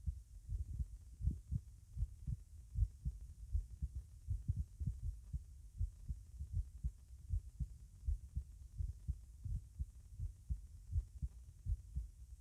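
Human heartbeat heard at the tricuspid listening area of the chest with the person sitting: a steady, regular run of low thuds.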